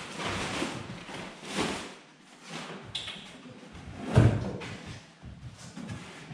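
A dog and its handler moving about on a wooden floor: scuffing steps and a few knocks, with a louder thud about four seconds in.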